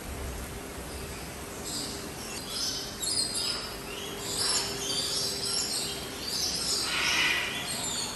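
Birds calling, a string of short, high chirps and calls starting about one and a half seconds in, with the loudest call near the end, over a faint steady hum.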